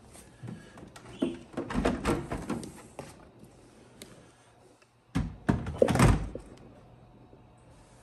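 Hollow plastic knocks and clatter as a water tank is lifted and seated into the Narwal T10 robot mop's base station, with its lid handled. The knocks come in two bursts, around two seconds in and again at five to six seconds.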